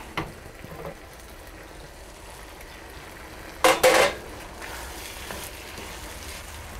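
Vegetables and cornstarch-thickened sauce sizzling in a wok on medium-high heat as the sauce comes to a boil, with a brief loud scrape of a wooden spoon against the pan about four seconds in.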